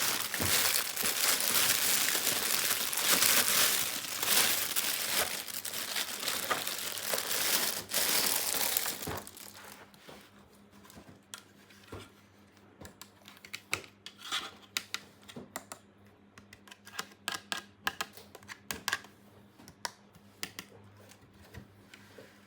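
Plastic toy packaging crinkling and being torn open for about nine seconds, then quieter scattered clicks and taps of small plastic pieces being handled.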